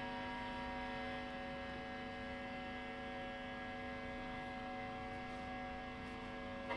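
Faint, steady electronic drone of several held tones from the noise act's amplified rig, left sounding at the end of the set.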